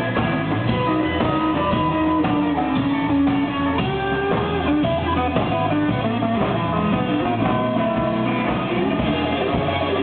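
Live band playing: semi-hollow electric guitar over a drum kit.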